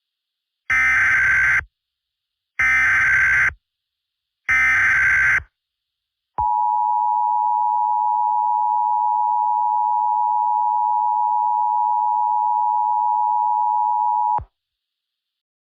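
Emergency Alert System tones: three bursts of about a second each of screechy SAME digital header data, then the steady two-tone EAS attention signal held for about eight seconds and cut off abruptly.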